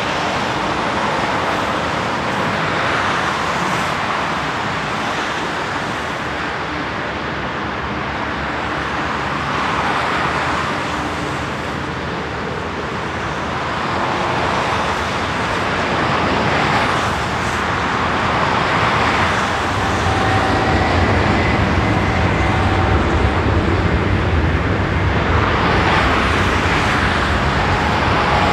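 Diesel aircraft tug towing a Lufthansa Airbus A340-300, over a steady rush of airport jet noise. A low engine rumble grows louder about twenty seconds in.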